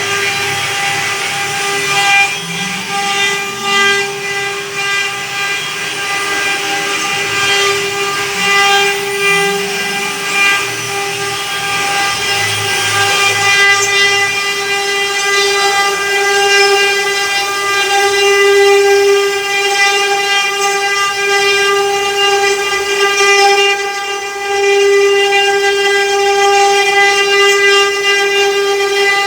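CNC router spindle running at constant speed, a steady high-pitched whine as it cuts wood, with a lower hum that comes and goes in the first half.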